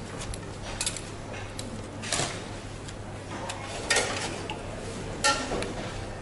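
Steel kitchen utensils clinking against a stainless-steel stock pot and bowls as tongs and a ladle are worked through beef broth. There are a few sharp metallic clinks, the loudest about four and five seconds in, between softer scooping swishes, over a low steady hum.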